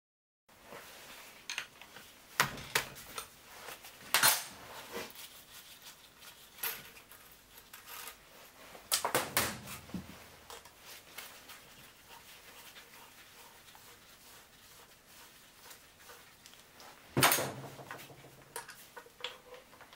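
Scattered metal clicks and clinks from hand work on a Yamaha XT600 single-cylinder engine's cylinder head, with a few sharper knocks. First the rocker arms are rattled by hand under the opened valve covers; their free play shows the piston is at compression top dead centre. Then work moves to loosening the cam chain tensioner.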